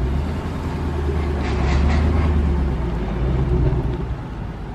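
A car engine running with a deep, steady low exhaust note, swelling in the middle and easing off near the end.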